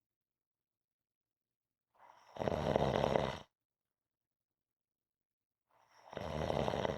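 A person snoring twice, about four seconds apart. Each rough snore lasts about a second and a half, starting faintly and swelling, with dead silence between the snores.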